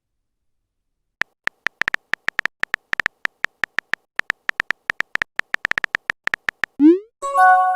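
Smartphone messenger sounds: rapid, irregular keyboard typing clicks for several seconds, then a quick rising swoosh and a short multi-note notification chime near the end.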